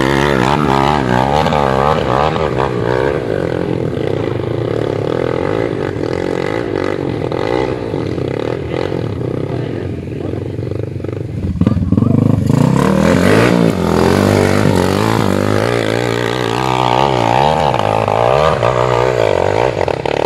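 Small trail motorcycle engine revving hard on a steep dirt climb, its pitch rising and falling as the throttle works against the slope, with a louder surge about twelve seconds in.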